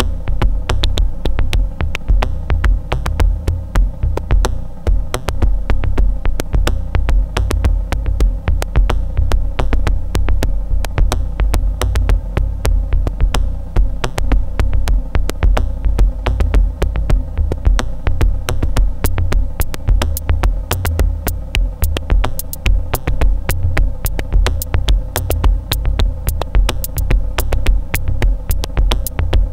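Dark minimal electronic groove from a Dave Smith Tempest analog drum machine and a Eurorack modular synth: a heavy pulsing low bass under a steady drone, with rapid high ticks that grow brighter and denser from about twenty seconds in.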